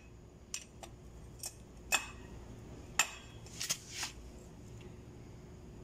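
Irregular sharp metal clinks, about seven in all, the loudest about two and three seconds in: a socket wrench and loosened crankcase cover bolts on a scooter being handled and set down.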